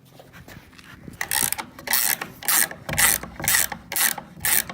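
Hand cranking of a nut on a threaded-rod wall-plumbing jig: short ratcheting, rasping strokes about two a second, starting about a second in. The jig is drawing a framed wall straight.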